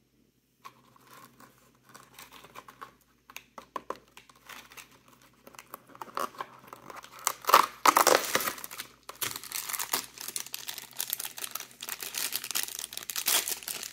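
Crinkly packaging being torn open and crumpled by hand while a small Disney Doorables figure is unwrapped. It starts after a brief quiet moment and gets louder about halfway through, with the loudest crinkling just past the middle.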